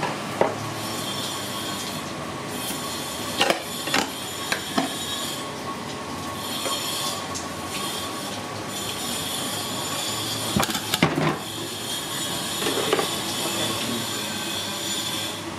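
Knife and hands working a giant clam open: several sharp knocks and scrapes against the heavy shell, loudest about a second in and again around the middle. Under them, a high whine comes and goes.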